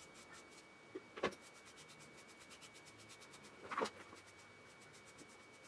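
Faint rubbing and scraping of a Mars Coat King stripping comb drawn through a wet cocker spaniel's coat, heard through a glass shower door, with two soft knocks.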